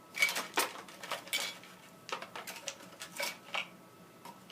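A string of small clicks and clatters, about eight spread over four seconds: batteries and multimeter test probes being handled and set down on a hard surface.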